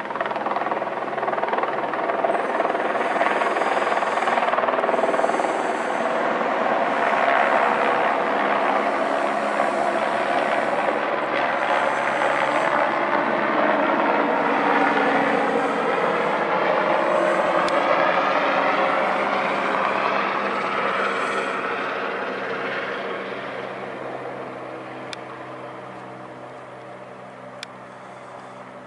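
A single-engine Eurocopter AS350 Écureuil-type helicopter lifting off and flying past, its turbine and rotor noise loud and steady with a sweeping, shifting pitch as it passes. About 20 seconds in it starts to fade as the helicopter climbs away.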